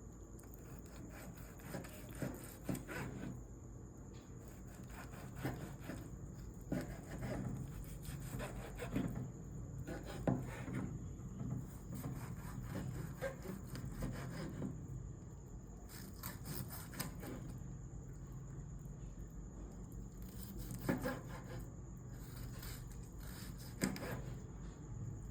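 A knife sawing and scraping through steak on a wooden cutting board, with irregular strokes and light taps.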